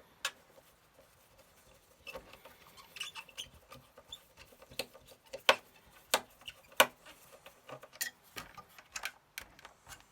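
Scattered small clicks, taps and scrapes of hands handling the plastic and metal parts of a Commodore MPS-801 dot-matrix printer as it is taken apart, with a few sharper clicks in the second half.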